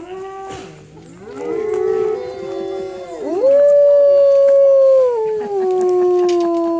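A pack of wolves howling in chorus: several long, overlapping howls at different pitches. About three seconds in, one howl sweeps up, holds, then slides down.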